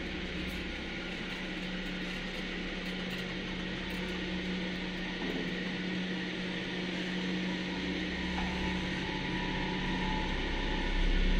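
Zremb elevator car travelling through its shaft, heard from the car roof: a steady mechanical rumble and whir with a constant hum underneath, slowly growing louder. A thin whine joins about eight seconds in.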